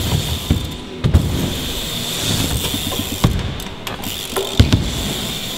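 BMX bike riding a skatepark bowl: tyres rolling on the ramp, with three sharp knocks as the bike hits and lands on the ramp during a bar-spin trick, the last, near the end, the loudest.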